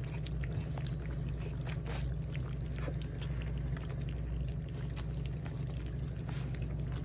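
Rottweiler puppies eating from a shared dish: many small wet smacks and clicks of lapping and chewing, over a steady low hum.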